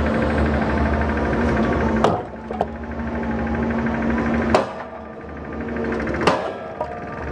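Doosan wheeled excavator's diesel engine running steadily while its bucket smashes concrete pipes, with about four sharp cracking impacts as it strikes.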